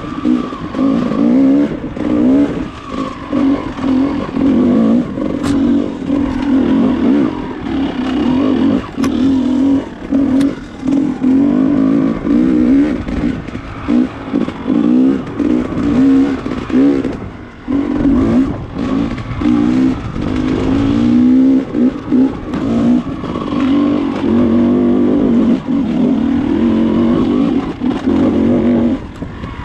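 Dirt bike engine running under varying throttle on a rough trail, its note rising and falling with frequent brief dips in loudness.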